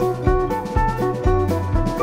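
Background music with a steady drum beat, a bass line and melodic notes.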